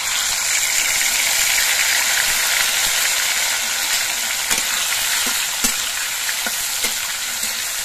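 Okra pieces frying in hot mustard oil in a metal kadai: a loud, steady sizzle that starts abruptly as the okra goes in. A few light clicks of a metal spatula against the pan come in the second half.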